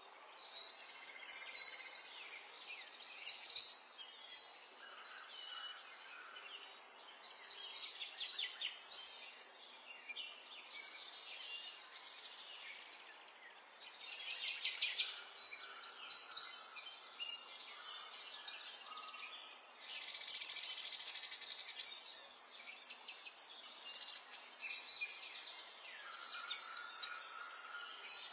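Several songbirds singing at once: overlapping high chirps, fast trills and warbled phrases that come and go in bursts.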